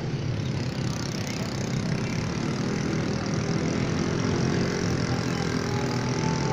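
A motor vehicle engine running steadily, with a second, higher engine note coming in about halfway through.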